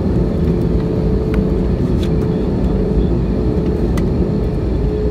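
Jet airliner cabin noise while taxiing, heard from inside the cabin: a steady low engine rumble with a constant hum.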